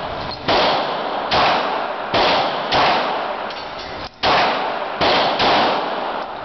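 Firearm shots: seven in an irregular string, about half a second to a second and a half apart, each cracking sharply and then ringing out in a long echoing tail.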